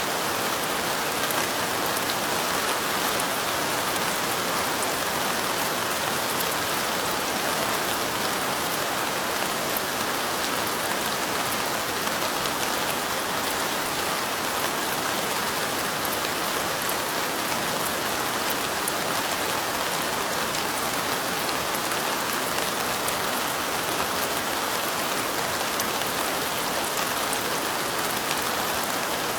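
Steady light rain falling, a continuous even hiss with fine ticks of individual drops throughout.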